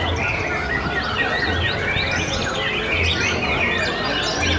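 Several caged white-rumped shamas singing at once: dense, overlapping whistles and chirps with no pause. A faint low thump comes about every one and a half seconds underneath.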